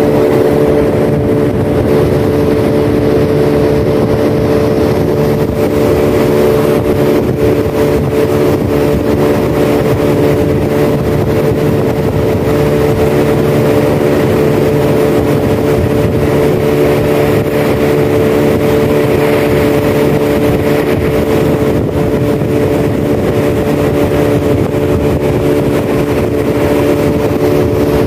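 Motor of a small aluminium boat running steadily at one constant speed, a steady hum over a hiss.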